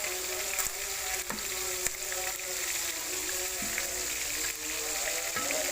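Fish frying in hot oil: a steady sizzle with scattered sharp crackles and pops.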